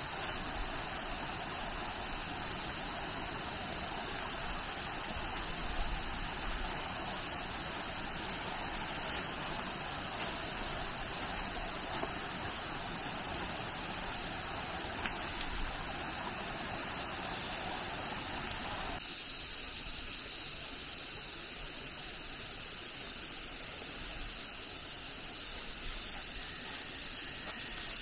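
Steady rush of running water, a continuous hiss with no distinct events, whose fuller middle part thins out about two-thirds of the way through.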